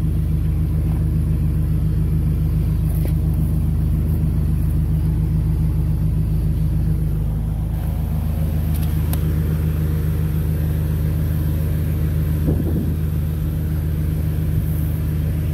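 Pressure washer engine running steadily at a constant speed, an even low drone.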